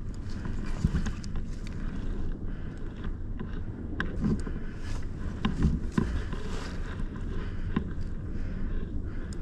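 Low rumbling wind noise on the microphone, with scattered sharp clicks and snaps.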